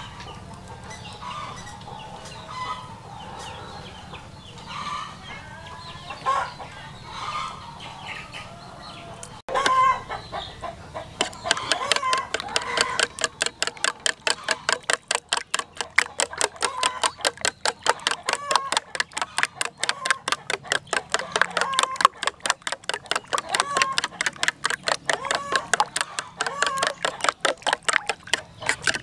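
Chickens clucking in the background. About ten seconds in, a metal utensil starts beating ostrich egg in a bowl: a fast, steady run of clicks, several strokes a second, against the clucking.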